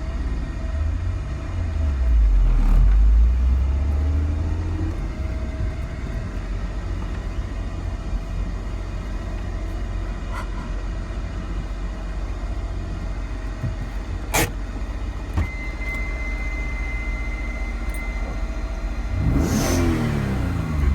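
Freshly rebuilt 1993 Mitsubishi 3000GT SL's V6 engine running as the car is driven: a steady low rumble, with one sharp click about two-thirds of the way through and the revs rising and falling near the end.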